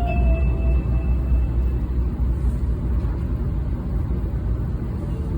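Steady low rumble inside the passenger cabin of a 700 Series Shinkansen. The last note of the onboard chime dies away in the first second.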